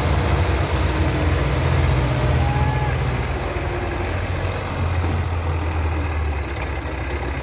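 Two Belarus tractors' diesel engines running under heavy load, hitched in tandem to tow a loaded truck, with a low, steady engine note.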